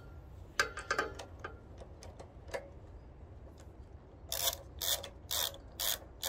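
Ratchet wrench undoing a 10 mm nut on a small four-stroke engine: a few light metal clicks as the socket is fitted, then from about four seconds in a run of ratchet clicks, about two a second, as the handle is swung back and forth.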